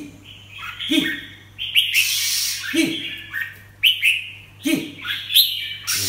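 Caged red-whiskered bulbul calling in short repeated phrases, about one a second, each a quick chirp with a lower falling note.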